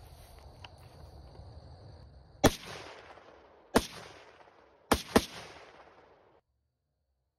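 Four shots from a custom 450 Bushmaster AR-15-style rifle, the last two in quick succession, each a sharp crack with a short trailing echo. This is a test-fire of the rifle after gas port work meant to cure its feeding and cycling problem.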